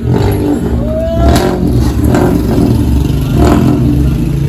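Suzuki Wagon R's small three-cylinder petrol engine revving and pulling away on an open pipe, its resonator and rear silencer removed: a loud, raw exhaust rumble with several sharp swells as the throttle is blipped.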